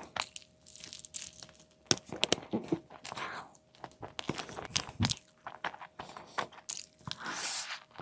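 Close-miked eating of a crispy fried chicken burger: crunching bites and chewing, a run of sharp crackles with a couple of longer crunching stretches.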